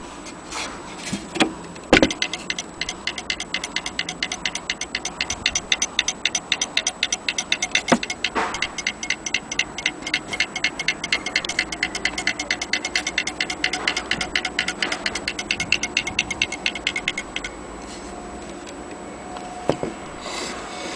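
Antique fusee station clock's mechanism clicking in a fast, even run that stops suddenly after about fifteen seconds. A few separate knocks come before the run, one partway through it, and another after it.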